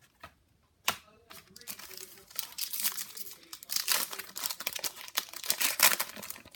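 A 2018 Panini Prestige trading card pack's wrapper being torn open and crinkled, with a sharp tap about a second in, then dense crackling.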